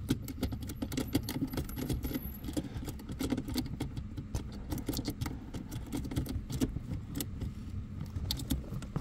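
Irregular small clicks and rattles as a brake light stop switch is screwed by hand into its bracket above the brake pedal, with fingers knocking against plastic and wiring under the dashboard.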